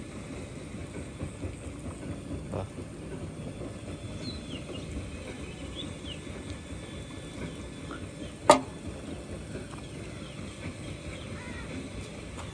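Open-air waterside ambience: a steady low rumble with faint bird chirps around the middle, and one sharp click about eight and a half seconds in.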